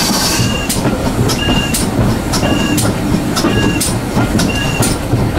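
GWR Prairie tank engine 5521 hauling its train, heard from the carriage just behind it: a steady rumble with sharp regular clicks, about two a second, each with a brief high ring.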